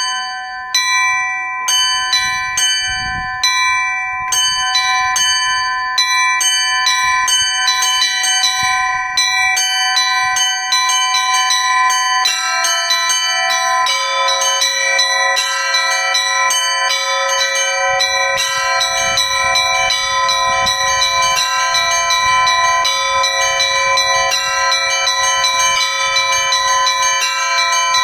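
Russian Orthodox church bells ringing in a fast peal, the small high bells struck rapidly in a repeating pattern. A lower bell joins about twelve seconds in and a still lower one about two seconds later, and the strikes grow denser.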